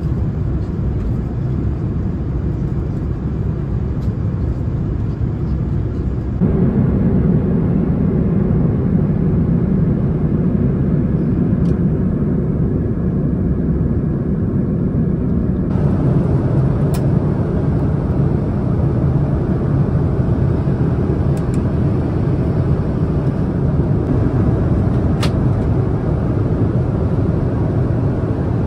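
Steady cabin noise of an Airbus A330-900neo in cruise, a low rumble of airflow and its Rolls-Royce Trent 7000 engines heard from an economy seat. The rumble gets a little louder about six seconds in, and more hiss joins it about sixteen seconds in. A few faint ticks sound over it.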